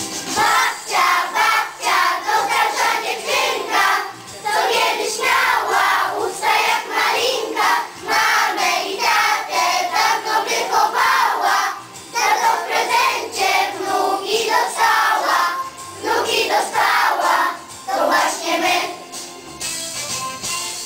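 A group of children singing a song together over musical accompaniment.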